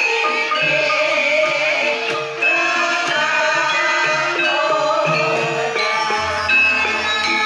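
Javanese gamelan ensemble playing a Banyumasan gending: overlapping ringing notes from metallophones and bonang gong-chimes, with a deep low note entering about six seconds in.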